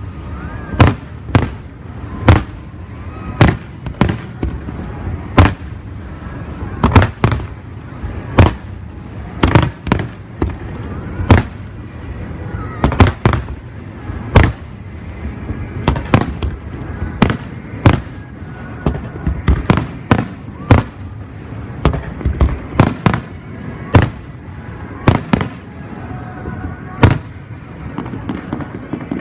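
Aerial fireworks display: shells bursting one after another at an uneven pace, about one or two sharp bangs a second, each trailing a short echo, over a steady low rumble and crowd voices.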